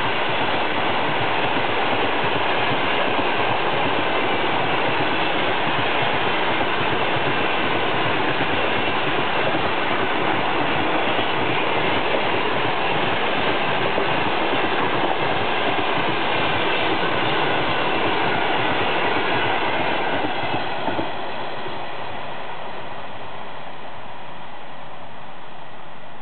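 Passenger coaches of a long-distance train rolling past at speed, a steady loud rush of wheels on rail. About twenty seconds in it drops off as the last coach goes by and the train recedes.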